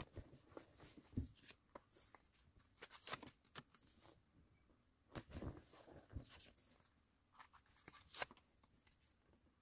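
Paper crackling and rustling as square sticky notes are peeled off and pressed onto a notebook page: a handful of short, quiet crackles, the longest about five seconds in.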